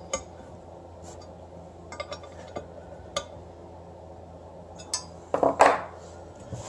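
Steel Allen key clicking and clinking against a billet aluminum starter bracket and adapter plate as its bolts are turned, in scattered light taps, with one louder ringing metal clink near the end.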